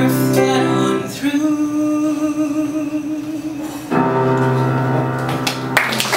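A live singer and small band with piano and guitar end a musical-theatre song. A long held note is followed by a final chord that stops just before the end, when applause breaks out.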